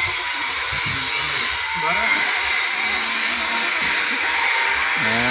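Goat bleating, once briefly about two seconds in and again in a longer, wavering call near the end, over a steady loud hiss.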